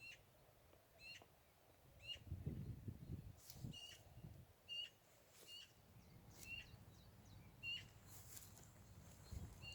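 A songbird giving a short, sharp call over and over, about once a second, faint against quiet parkland.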